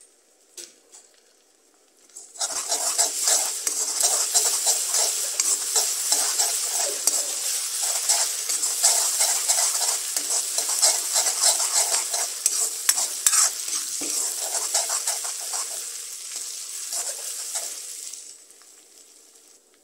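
Food sizzling in hot oil in a steel kadai while a metal spoon stirs it, clicking and scraping against the pan. The sizzle starts suddenly about two seconds in and dies away near the end.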